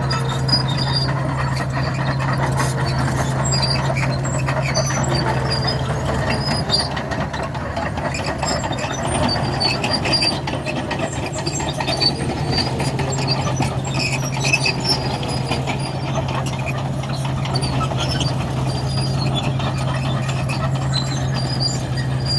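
Komatsu D61 crawler bulldozer's diesel engine running steadily under load, with repeated short high squeals from its steel tracks as it breaks up and pushes the road's bituminous surface.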